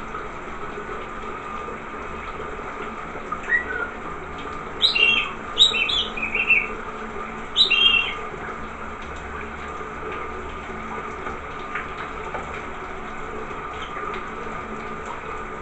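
Shower water running steadily while a rainbow lorikeet bathes, giving a few short, high chirps and squawks in a quick cluster about five to eight seconds in.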